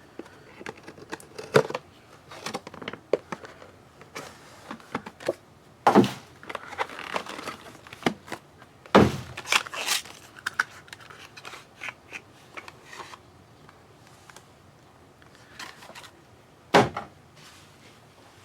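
A sealed trading card box and its pack being ripped open by hand: crinkling and tearing of wrapper, with scattered clicks and a few sharp knocks as the box and cards are handled.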